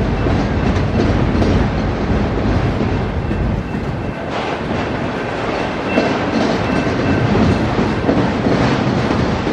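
Autorack freight cars rolling past: the steady rumble and rattle of steel wheels on the rails, with repeated clickety-clack as the wheels pass over the track.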